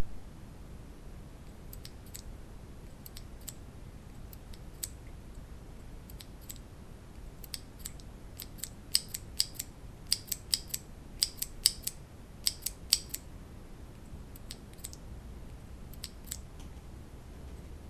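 Keystrokes on Cherry MX mechanical keyboard switches: a few scattered presses, then a quicker run of typing in the middle, then a few more presses, each a short sharp click.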